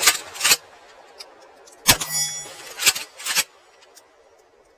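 Mossberg 590S 12-gauge pump-action shotgun: the slide racked back and forward with two clacks at the start, one shot about two seconds in, then the slide racked again with two clacks about a second after the shot.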